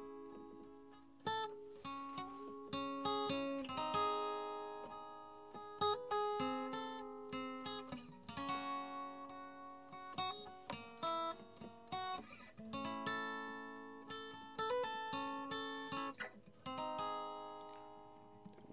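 Soundtrack music on acoustic guitar: a steady run of picked notes and chords, each struck and left to ring and fade.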